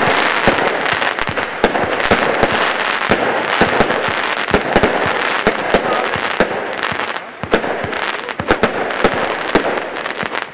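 Firework battery firing: a continuous stream of sharp pops and crackling bursts, several a second, easing briefly about seven seconds in.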